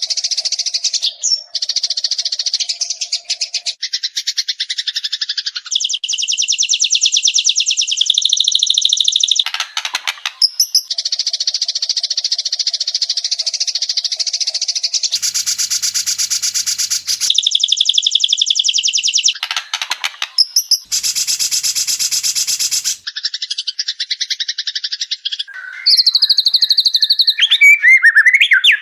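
White-rumped shama (murai batu) song from an edited training recording: long runs of very fast, rapid-fire trilled notes, broken twice by a harsh rattling chatter, with a few gliding whistles near the end.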